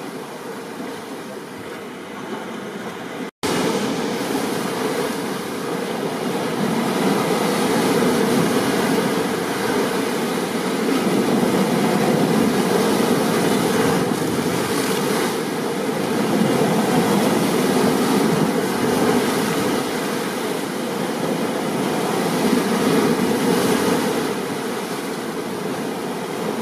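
Recorded storm ambience of rain and ocean surf: a dense, steady rush that swells and eases every few seconds. About three seconds in it cuts out for a split second and comes back louder.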